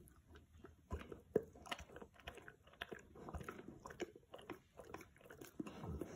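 Boerboel gnawing on a chew held between its paws: a run of irregular, quiet crunches and clicks of teeth on the chew.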